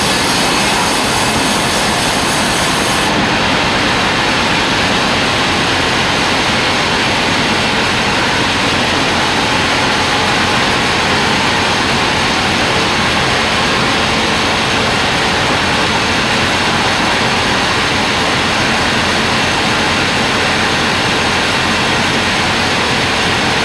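Band sawmill running steadily, its blade cutting a log into boards and frame timber with a loud, even noise; the highest hiss drops away about three seconds in.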